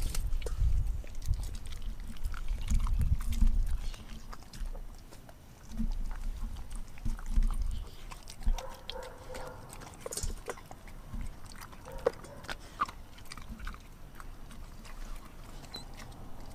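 German shepherd mix dog chewing and crunching raw food, with a chicken foot among it, from a steel bowl: irregular crunches and wet bites close to the microphone, heaviest in the first few seconds and again around halfway, then lighter.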